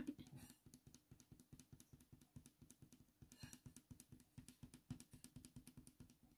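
Near silence with faint, rapid soft taps of a putty eraser being dabbed against drawing paper to lift graphite, over a low steady room hum.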